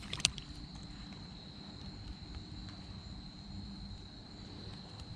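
Steady, high-pitched insect chirring over a low rumble, with a single sharp click about a quarter of a second in.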